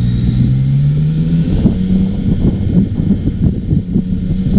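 Yamaha XSR900's 847 cc three-cylinder engine pulling under acceleration, rising in pitch for about the first second and a half and then holding steadier. Wind buffets the microphone throughout.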